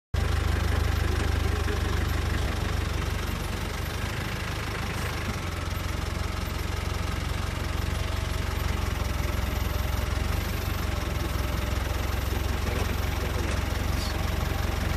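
Safari vehicle's engine idling steadily with a low, even rumble.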